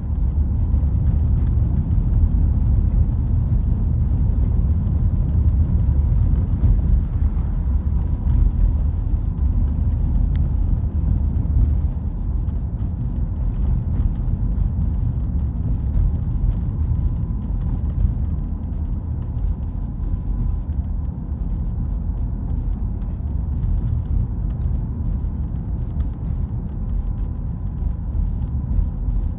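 Steady low rumble of a car's road and engine noise heard from inside the cabin while driving at low speed, with a thin, faint steady tone above it.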